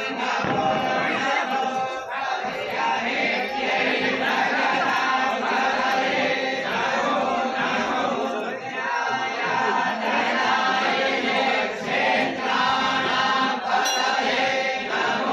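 Group of voices chanting Hindu mantras together without a break.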